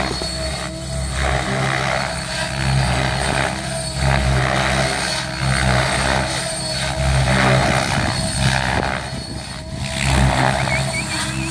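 Compass 7HV electric RC helicopter flying 3D aerobatics: a steady high motor whine under a rushing rotor-blade sound that swells and fades every second or two as it manoeuvres.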